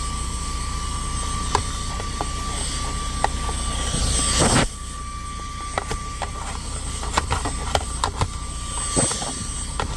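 Cordless handheld vacuum with a brushless motor running steadily with a high whine, while debris clicks and rattles through the nozzle as it picks up a small mess. The suction rush swells louder about four seconds in, then settles back.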